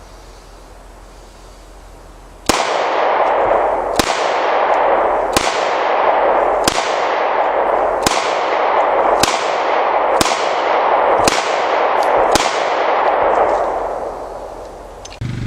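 Nine shots from a Taurus 9mm pistol, fired at a steady pace of about one every second and a quarter starting a couple of seconds in, each sharp crack trailed by a long echo.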